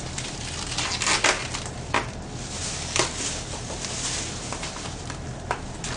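Plastic cling film being peeled off delivery food bowls while plastic bags rustle: a steady crinkling with several sharp crackles.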